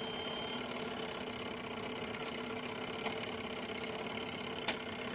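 A steady low hum, with a faint click about three seconds in and a sharper click near the end.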